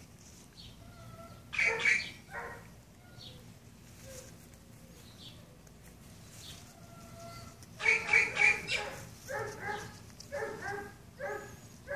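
Short pitched animal calls: two about a second and a half in, then a run of about four more from about eight seconds in. Faint high chirps sound between them.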